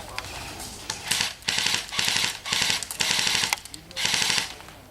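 Airsoft electric gun (AEG) firing on full auto: about five short rattling bursts in quick succession.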